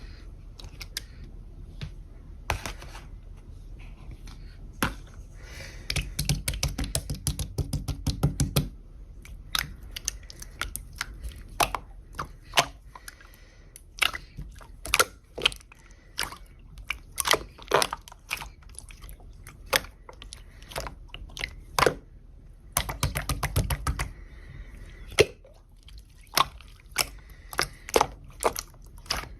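Clear slime being squished and poked by hand, giving many sharp, irregular clicking pops of trapped air, with denser flurries of crackling about six seconds in and again near twenty-three seconds.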